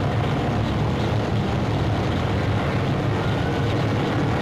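Aircraft engine droning steadily, a low, even noise with hiss from an old newsreel soundtrack.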